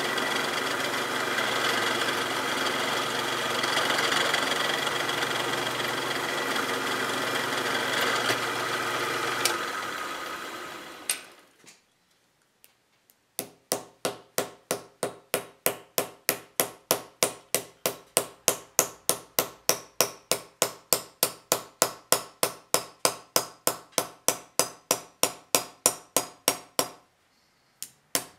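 Bench drill press running as its small bit bores through thin copper sheet, then spinning down. After a short pause, a small hammer strikes copper sheet on a leather pad in a quick even rhythm of about four blows a second, texturing the metal, with a brief break near the end.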